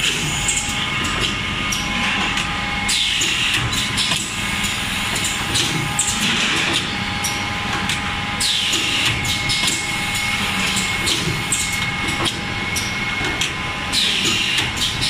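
Automatic three-cavity PET stretch blow molding machine running: a hiss of released compressed air every few seconds as each set of bottles is blown, over a steady hum and the clicks and knocks of the mechanism.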